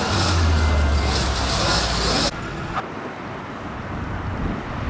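Berlin S-Bahn BR485 electric train passing close by: wheels rolling on the rails with a steady hiss and a low hum. About two seconds in, the sound cuts off abruptly to a much quieter, even background noise.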